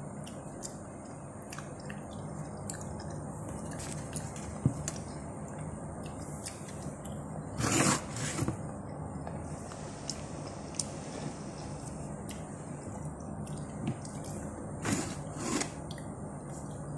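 Eating by hand: fingers working and squishing rice on a plate, with small wet clicks and smacks of chewing over a steady low hum. A louder wet sound comes about eight seconds in and twice more near fifteen seconds.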